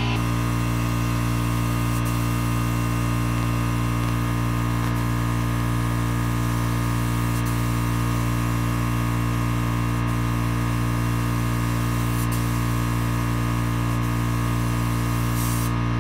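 Air compressor running steadily with a low hum, under the even hiss of a gravity-feed spray gun spraying paint.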